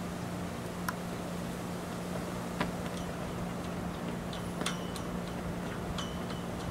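A steady low hum with faint scattered clicks and a few short high chirps, the clearest chirps about halfway through and again near the end.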